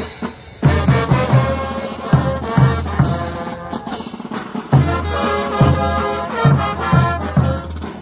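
Bolivian carnival brass band playing, brass instruments over a bass drum beating about twice a second. The band drops out briefly just after the start and thins for a moment around the middle before coming back in full.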